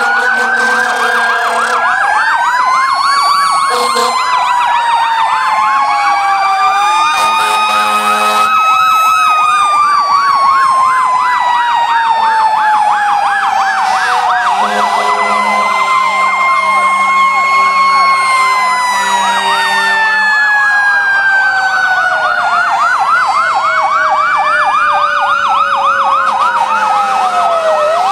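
Several fire-truck sirens sounding at once and overlapping: fast yelping electronic sirens, slower rising and falling wails, and one long wail that slowly winds down in pitch over many seconds. Short steady horn blasts come in between.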